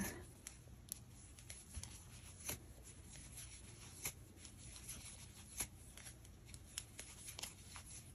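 Faint rustling and irregular light clicks of hands working chunky acrylic yarn with a crochet hook, stitching single crochets into a magic ring.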